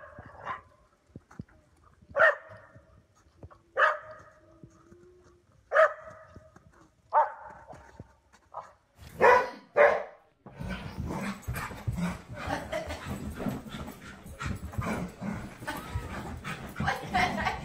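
Dog barking: single sharp barks about every one and a half to two seconds, with two quick barks close together about nine seconds in. From about ten seconds in, a dense, continuous jumble of clatter and noise replaces the barking.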